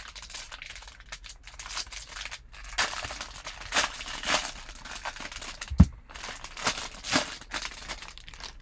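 Foil wrapper of a Bowman Draft Super Jumbo baseball card pack crinkling and tearing as hands pull it open, in a run of short sharp crackles. A single thump about six seconds in is the loudest sound.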